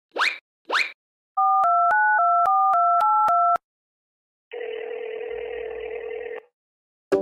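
Telephone keypad tones as a number is dialled: about a dozen quick two-note beeps in a row. After a short pause comes a steady line tone, like a call ringing through. Three quick rising chirps come first, just before the dialling.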